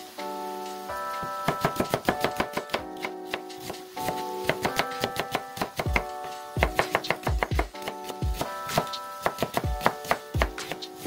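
Chef's knife slicing an onion on a wooden cutting board: rapid, irregular knocks of the blade against the board, starting about a second in, with heavier thuds in the second half, over background music.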